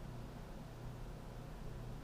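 Faint steady low hum with a light hiss: quiet room tone, with no distinct event.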